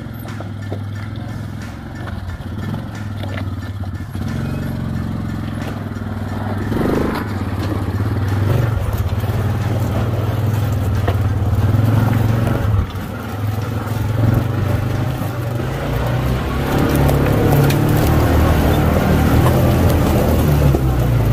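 Side-by-side UTV engine running at low speed while the vehicle crawls over loose rocks, with tyres crunching and scraping on the stones. The engine grows louder over the first several seconds.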